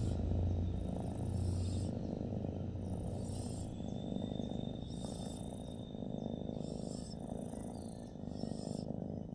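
Cat purring in a steady, rough low rumble, with a brief high hiss recurring every one and a half to two seconds.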